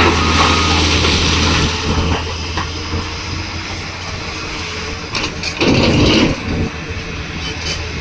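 Heavy diesel engines of an excavator and dump truck running steadily. The truck's reversing beeper sounds briefly at the start and then stops. About six seconds in there is a louder, short rumble with clatter.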